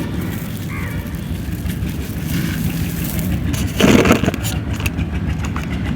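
Dry crumbly chunk being crushed and crumbled between the fingers, with one loud crunch about four seconds in, over a steady low rumble.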